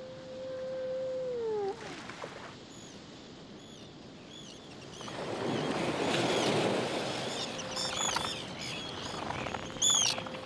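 A foghorn's long steady note sags in pitch and stops about a second and a half in. Then seabirds at a breeding colony give short, high, arching calls over a rush of noise that swells midway.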